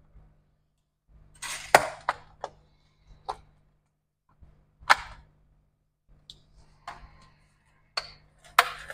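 Sharp metallic clicks and knocks, about nine in all and the loudest near two, five and almost nine seconds in, from the aluminium bottom case and its screws being handled as the back cover of a MacBook Pro 16-inch A2141 is taken off.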